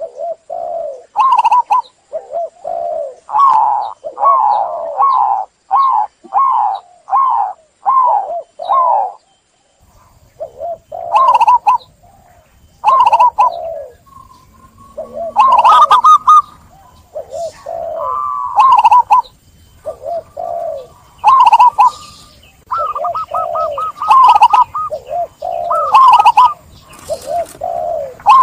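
Local zebra doves (perkutut) cooing: a rhythmic series of loud, repeated coo notes, pausing briefly about a third of the way in. In the second half a second bird joins with higher, fast-repeated notes that overlap the coos.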